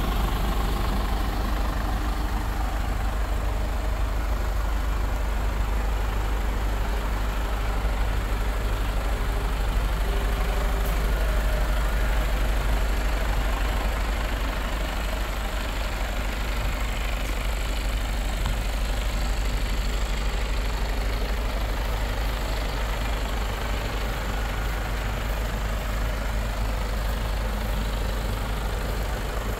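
Mercedes-Benz Actros 1848 tractor unit's 12.8-litre inline-six diesel idling steadily.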